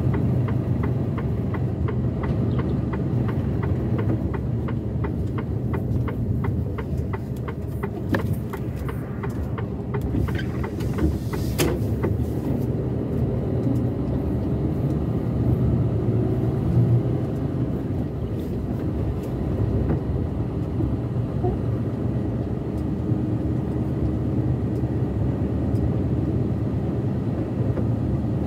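Truck driving along a road: a steady low engine hum with tyre and road noise. Light ticking is heard for several seconds in the first part.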